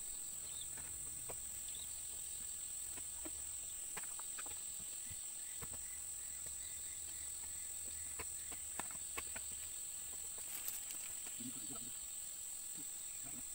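Steady high-pitched drone of chirring insects, with scattered faint clicks and light knocks.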